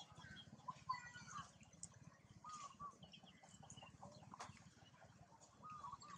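Faint short animal calls every second or so, with a few scattered clicks, over a low steady hum.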